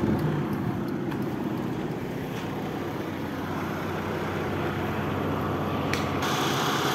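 Daihatsu Charade Classy's engine idling steadily, with a few light clicks and a couple of knocks about six seconds in.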